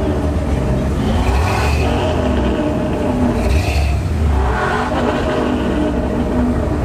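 Engine of a lowered 1990s Ford F-150 pickup rumbling steadily at low speed as the truck rolls slowly past.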